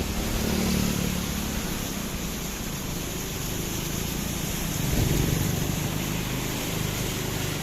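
A bus engine running steadily while the bus drives, with road and wind noise and a swell in loudness about five seconds in.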